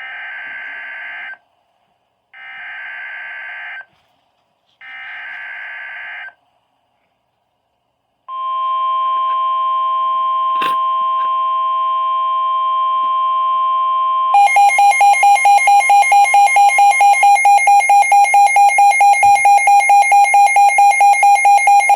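Emergency Alert System SAME header: three short bursts of digital data tones about a second apart, followed by the steady 1050 Hz NOAA Weather Radio warning tone with a click partway through. A few seconds into the tone, a louder electronic alarm beep pulsing about five times a second takes over.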